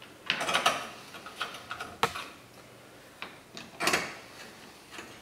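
Ratchet with a 10mm socket tightening the headlight assembly's mounting bolts: short bursts of ratchet clicks with a few light knocks against the plastic headlight housing.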